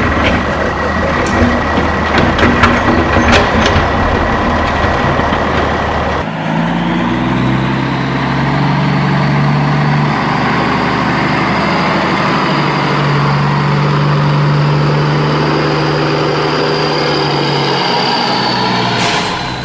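A large vehicle engine running steadily, with scattered clicks over the first six seconds. About six seconds in it switches abruptly to a different engine sound with a low hum and a faint high whine that rises and then holds.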